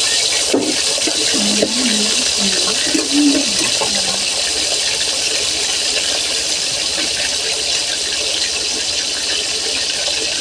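Fish steaks sizzling in hot oil in a wok: a steady, high-pitched frying hiss.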